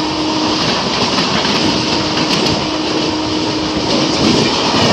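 Steady loud rush and rumble of an express train of LHB coaches passing close alongside on the next track, heard from a moving train, with wheels on rail and air noise blended together and a faint steady hum underneath.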